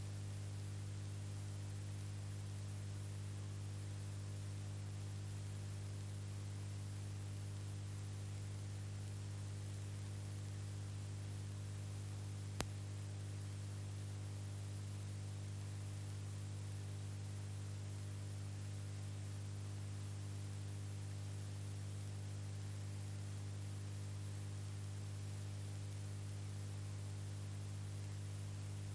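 Steady low electrical hum with hiss, the noise floor of a silent film transfer with no recorded sound. A single sharp click about halfway through.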